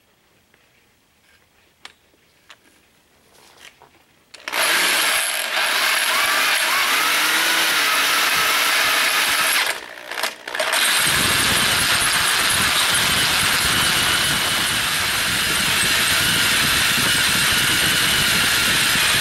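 Power drill driving a Lenox metal-cutting hole saw into a Ford 8N tractor's cast-iron bell housing. A few faint clicks at first, then the drill starts about four seconds in with a high-pitched whine, stops briefly about ten seconds in, and starts again with heavier grinding as the saw teeth bite into the metal.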